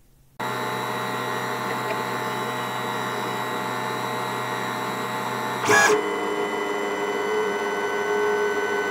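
LulzBot Mini 3D printer's stepper motors whining steadily as the print head travels over the bed, extruding a thin priming line of filament. A short, louder burst of noise comes about six seconds in, after which the whine carries on at slightly different pitches.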